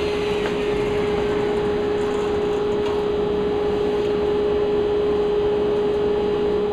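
Power saw and a vacuum-type dust extractor running steadily in a wood shop, with one steady hum through it; a fainter whine falls in pitch over the first couple of seconds as a motor winds down.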